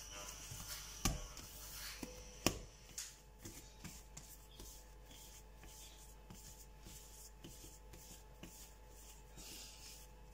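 Hands rubbing and patting a ball of freshly kneaded bread dough against a granite countertop as they round it. There are two sharper knocks, about one second and two and a half seconds in, then faint repeated rubbing and light taps.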